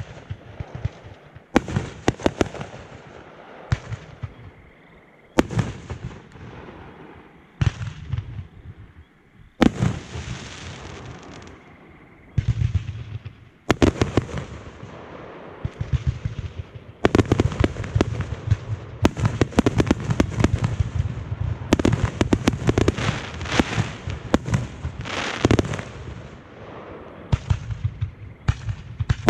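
Consumer fireworks going off: booming aerial shell breaks and launch thumps with crackling tails, spaced a second or two apart at first, then building to a dense, rapid barrage for the second half.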